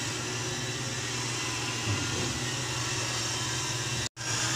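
Steady machine hum with a constant hiss over it. The sound cuts out for an instant near the end.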